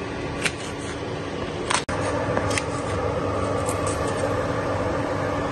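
A steady fan-like whir and hum from a kitchen appliance, a little louder from about two seconds in, with a single knife tap on a wooden chopping board early on as green chillies are sliced.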